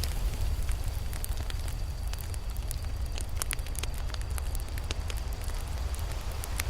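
Campfire burning, with irregular sharp crackles and pops from the wood over a steady low rumble.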